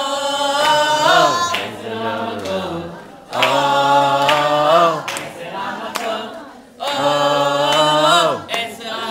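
A group of voices singing together without instruments, in three loud phrases separated by short breaks.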